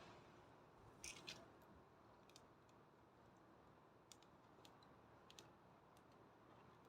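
Wood bonfire burning quietly, with sparse sharp crackles and pops from the burning wood over a faint hiss; the loudest is a quick cluster of snaps about a second in.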